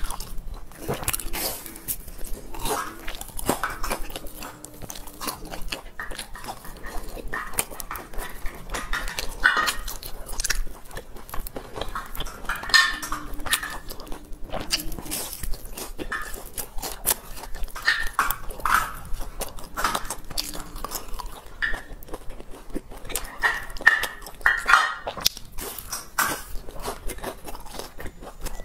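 Close-miked crunching and chewing of a crispy deep-fried cake: irregular crackling bites and mouth sounds throughout.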